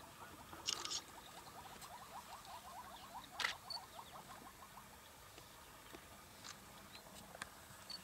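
Elephant feeding in dry bush: a brief rustle, then a sharp snap of a breaking twig as it tears at vegetation. Under it runs a faint, rapid chirping trill that stops about five seconds in.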